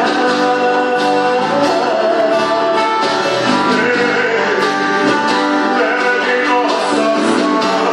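Music with guitar playing steadily throughout.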